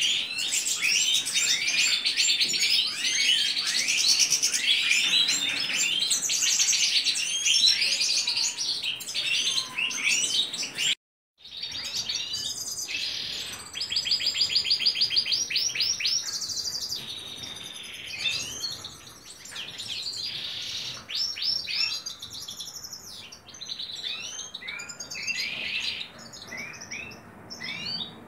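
European goldfinches singing: a continuous twittering of rapid chirps, buzzy notes and trills, broken by a brief gap about eleven seconds in.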